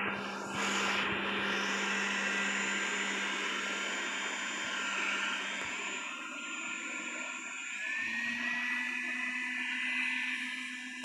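Robot vacuum cleaner running, a steady motor whir with its suction fan and brushes. About eight seconds in, its pitch steps up slightly.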